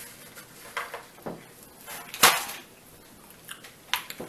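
A plate of trail mix handled and set down on a table: a few short knocks and light rattles, the loudest and sharpest about two seconds in.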